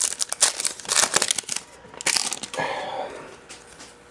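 Foil wrapper of a 2009 Gridiron Gear football card pack crinkling and tearing as it is opened by hand: dense crackling for about two seconds, one more burst, then fading away.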